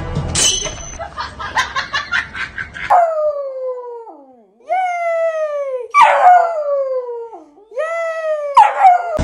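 Rottweiler puppy howling, starting about three seconds in: about four long howls, each rising briefly and then sliding down in pitch.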